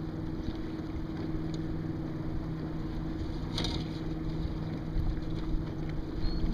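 Water washing against the hull of a Sunfish sailboat under sail, with wind on the microphone and a steady low hum; a short sharp sound stands out about three and a half seconds in.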